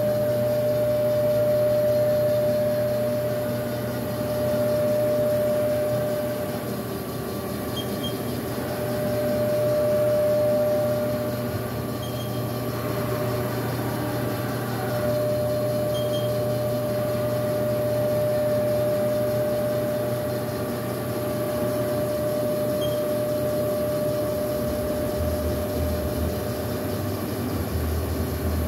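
Haas DS-30Y CNC lathe running with its spindle and chuck spinning at steady speed: a steady machine hum with a clear high whine over it, and a deeper hum that joins in near the end.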